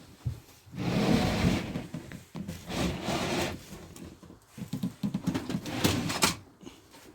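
Chipboard and wooden panels being handled and shifted, with scraping and knocking in three short bouts.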